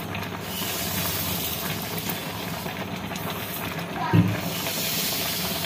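Granulated sugar pouring from a bag into a small steel glass and being tipped into a pan: a steady rustling hiss of falling grains, with one brief louder sound about four seconds in.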